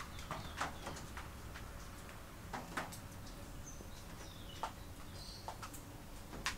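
Faint bird chirps in the background with scattered sharp clicks.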